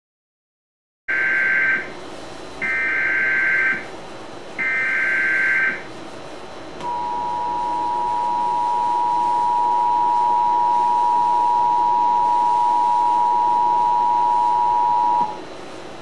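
Emergency Alert System broadcast tones: three bursts of SAME header data, each about a second long with short gaps, encoding a flash flood warning. These are followed by the steady EAS two-tone attention signal, held for about eight seconds before it cuts off.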